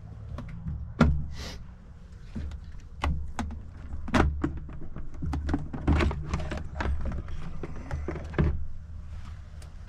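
Suzuki 2.5 HP four-stroke outboard being pull-started again and again: a series of sharp yanks and clatters every second or two over a low rumble, with the engine never catching. The owner puts the no-start down to an overfilled oil sump tripping the oil level sensor.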